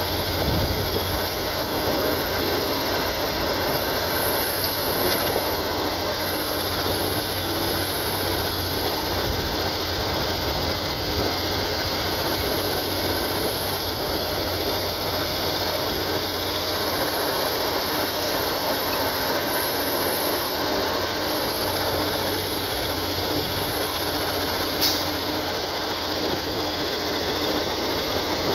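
Caterpillar hydraulic excavator's diesel engine running steadily as it works, with a single sharp click near the end.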